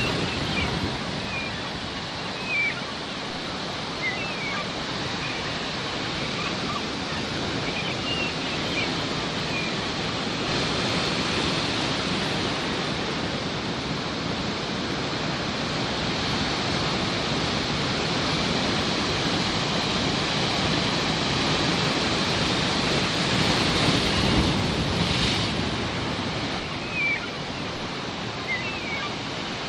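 Sea waves washing in continuously, swelling louder about twenty-four seconds in, with short seagull calls scattered over it, most of them in the first ten seconds and near the end.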